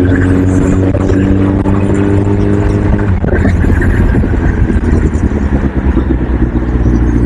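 Motor vehicle running on the road: a steady engine drone with road noise, and a held tone on top that cuts off sharply about three seconds in.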